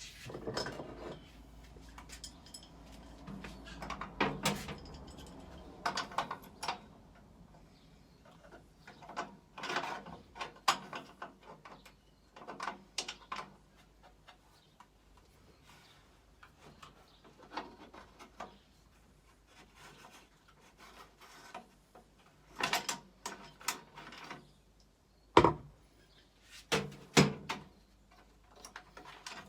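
Hand tools and scooter parts being handled during a repair: scattered clicks, knocks and scraping, with the sharpest knock about three-quarters of the way through.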